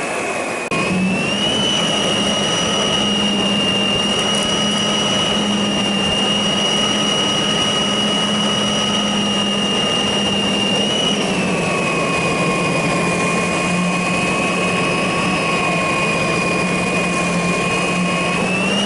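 Lindhaus LS38 cordless battery vacuum sweeper running during a pickup test: a steady motor whine over a low hum, which steps up in level just under a second in. The pitch dips slightly about eleven seconds in and rises back near the end as the load changes.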